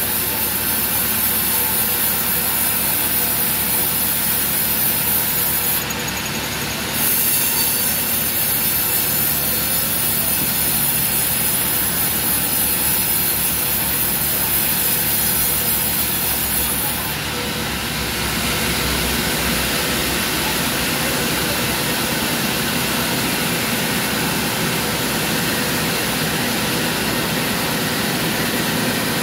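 Large vertical band sawmill cutting a teak log: a loud, steady sawing noise with a bright high hiss. About 17 s in the cut ends, and the saw runs on with a steadier, lower sound.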